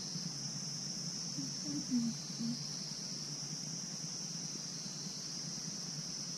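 Steady high-pitched drone of insects, with a low steady hum beneath it.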